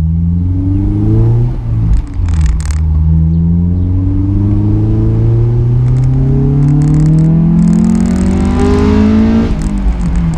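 Honda S2000's F20C inline-four, breathing through a J's Racing 60RS exhaust and test pipe, accelerating hard as heard from the open cockpit. The revs climb briefly and drop at a gearshift about a second and a half in. Then comes one long rising pull in the next gear, with the note turning harder and brighter near the top, before the revs drop again at another shift near the end.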